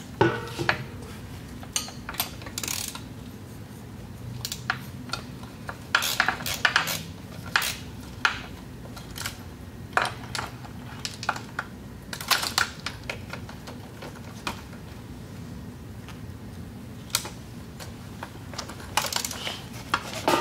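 Hand ratchet and socket clicking in short runs, a few times over, with light metal clinks, as nuts are backed off a transmission shift bracket.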